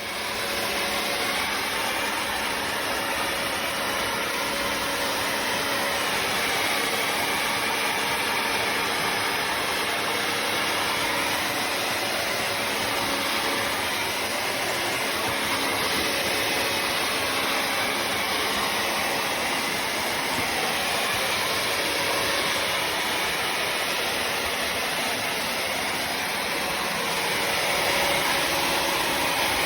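Bissell CrossWave HydroSteam wet-dry floor cleaner running steadily as it cleans a floor, a constant motor drone with a faint steady hum.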